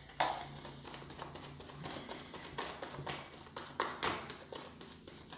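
Tarot cards being shuffled by hand: a quick, irregular run of soft card slaps and clicks, with a few sharper snaps among them.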